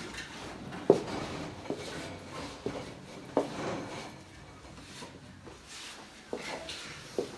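A series of short, soft knocks or thumps: four in the first half, about a second apart, then two more near the end.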